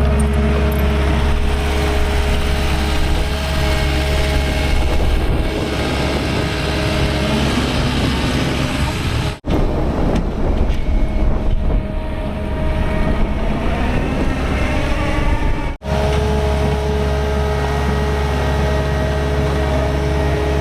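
Skid steer loader's diesel engine running steadily, with its pitch rising and shifting in the middle as it works. The sound drops out briefly twice.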